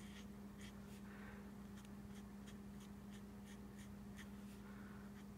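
Faint scratching of an alcohol marker's tip stroked on cardstock in short, repeated strokes, about three a second, over a steady low hum.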